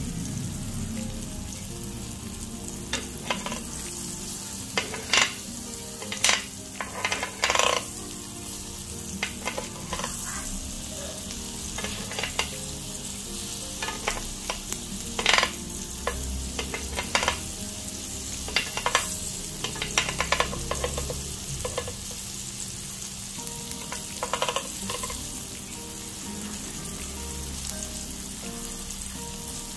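Sirloin steak searing in butter in a hot pan: a steady sizzle broken by many sharp pops and spits of fat, most of them clustered about five to eight seconds in and one loud pop at about fifteen seconds.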